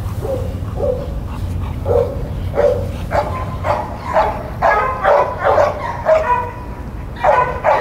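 A dog whining in a series of short, high-pitched calls, sparse at first and then coming faster and louder from about three seconds in, roughly two a second.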